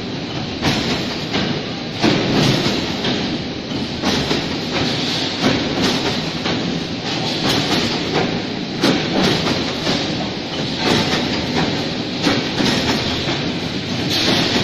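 Hexagonal gabion mesh weaving machine running, a steady metallic clatter with frequent irregular knocks as it twists wire into mesh.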